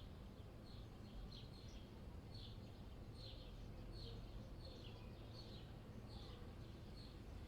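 Small birds chirping faintly, a short falling chirp about every half second, over a steady low city rumble.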